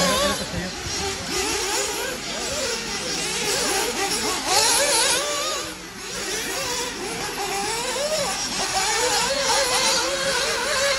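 Several radio-controlled off-road race buggies running together, their small high-revving engines whining and rising and falling in pitch as they accelerate and brake around the track.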